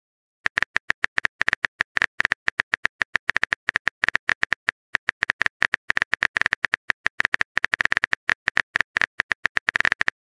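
Phone keyboard typing sound effect: a fast, irregular run of short key clicks, several a second, starting about half a second in, with a brief pause around the middle.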